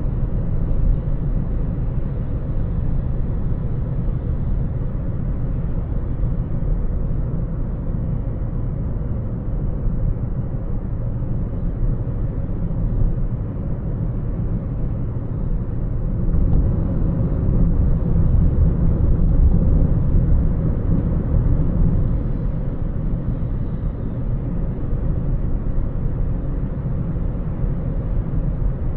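Steady low rumble of a moving car's road and engine noise, growing somewhat louder for several seconds past the middle before settling back.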